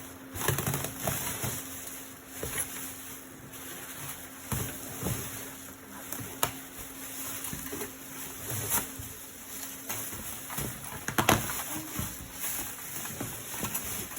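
Packaging being handled: irregular rustling with scattered knocks and clicks as a boxed chandelier is unpacked, over a steady low hum.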